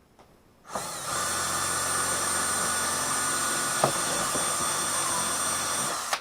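Power drill starting about a second in and running steadily for about five seconds, then stopping suddenly, with one small click about halfway through.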